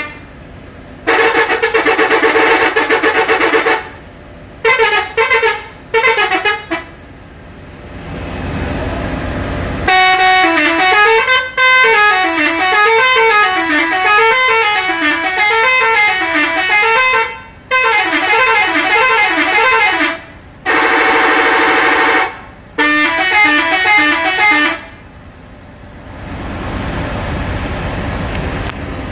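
Bus telolet horn, a multi-tone air horn, playing a run of blasts and warbling up-and-down melodies with short gaps between them. Between the blasts and near the end there is a low rumble.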